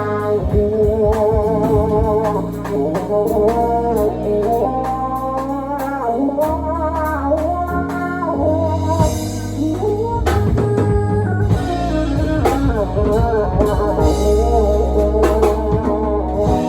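A band playing an instrumental jazz-funk tune: drum kit and bass under a wavering lead melody, with guitar and keys.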